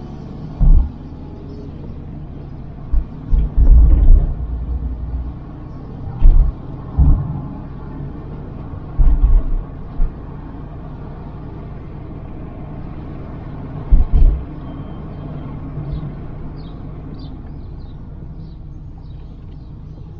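Car driving with a steady low road rumble, broken about ten times by short, loud low thumps.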